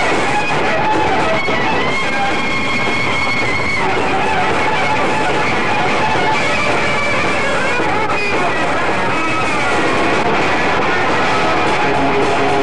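Live rock band playing loudly: an electric guitar lead with held, bending notes over bass and drums.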